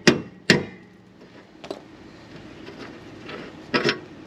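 Hammer tapping on a trailer leaf-spring wet bolt, striking the nut spun back onto its end to drive the bolt out of the spring eye and hanger. There are two sharp metallic knocks in the first half-second, a lighter one a little later, and a quick pair near the end.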